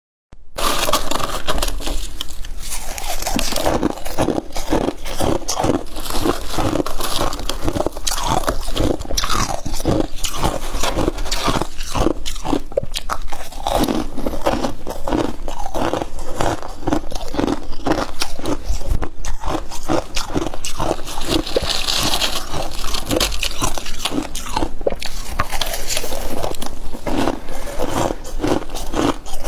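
Freezer frost being bitten and chewed: a continuous run of crisp, rhythmic crunches, one mouthful after another.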